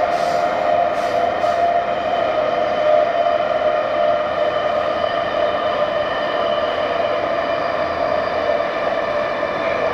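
Vagonmash S81 metro train (built 1989) running between stations, heard from inside the carriage: a steady whine from its DK-117 traction motors over the rumble of wheels on rail, with a few brief clicks in the first two seconds.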